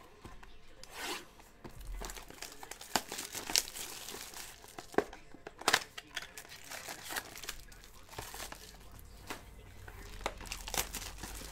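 Trading card pack wrappers and a cardboard card box being handled and opened by hand: irregular crinkling and crackling, with a few sharper snaps.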